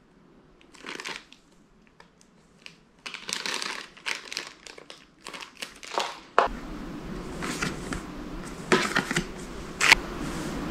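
Thin plastic packaging bags and paper inserts crinkling and rustling as they are handled. The rustling comes in short patches at first, then becomes denser and louder in the second half, with a few sharp clicks.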